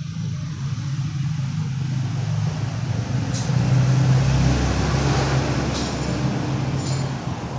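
A motor vehicle's engine running as it passes by, growing louder to its loudest about four to five seconds in, then easing off over a steady low hum.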